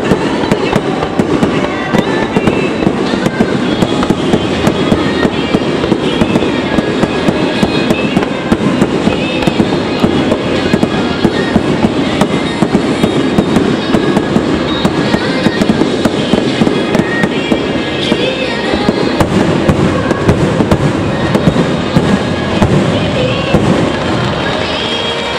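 Fireworks display going off in rapid succession: a continuous run of bangs and crackles, with music playing underneath.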